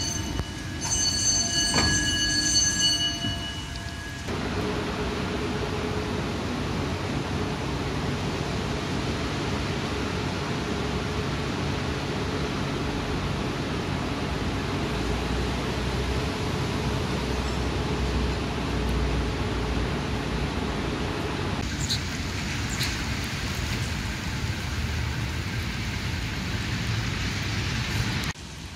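A tram running on its rails: a steady rumble with a low hum, and a few sharp clicks and short wheel squeaks about 22 seconds in. At the very start there is a brief ringing chime.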